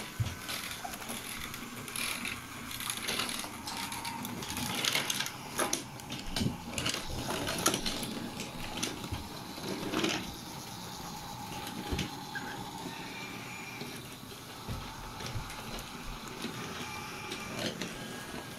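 Battery-powered BRIO toy trains whirring along wooden and plastic track, with frequent clicks and knocks as wheels cross track joints and the trains are handled.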